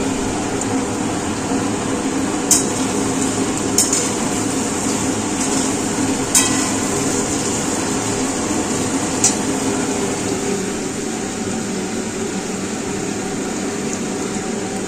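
Diced vegetables frying in a steel kadai over a steady hiss, stirred with a metal spatula that clinks sharply against the pan a few times.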